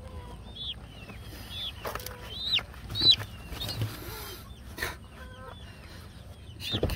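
Young chickens peeping: a steady run of short, high chirps that rise and fall, with a few sharp knocks mixed in, the loudest about three seconds in.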